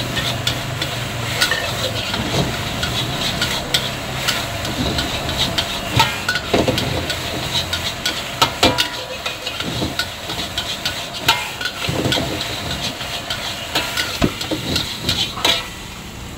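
Fried rice being stir-fried in a wok: a metal spatula scraping and clanking irregularly against the wok over a steady sizzling hiss. The clatter and sizzle stop suddenly near the end.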